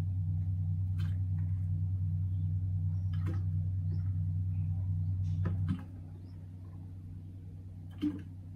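A steady low machine hum that drops noticeably a little over halfway through as part of it cuts out, with a few light plastic knocks of a scoop against a basin and funnel as ground garlic is spooned into a jug.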